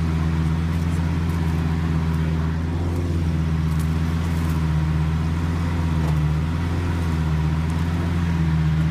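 Lamborghini Gallardo's V10 engine idling steadily: an even, deep drone that wavers slightly in pitch a couple of times.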